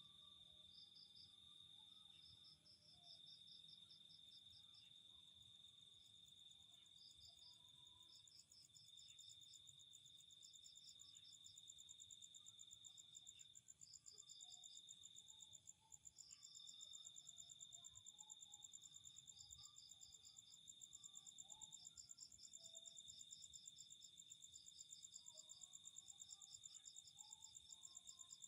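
Faint night insects chirping together: one steady high-pitched drone with brief breaks, rapid pulsed trills above it, and a higher, fast-pulsing chirr that grows louder about halfway through.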